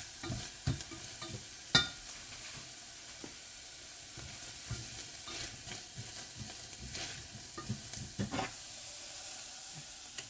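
Onions sizzling as they sauté in a pan, with a utensil stirring and scraping against the pan; one sharp clack about two seconds in.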